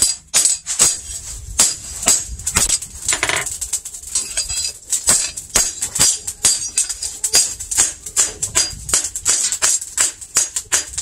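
Hand hammer striking a steel billhook blade, made from a chainsaw guide bar, on a post anvil: a quick, even run of sharp blows, each with a bright metallic ring.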